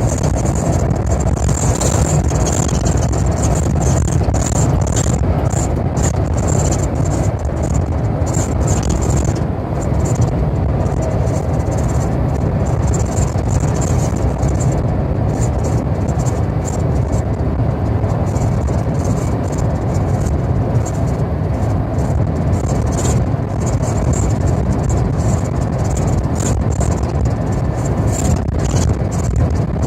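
Steady, loud rushing road and wind noise of a car moving along the expressway in typhoon weather, with scattered ticks and spatters on top.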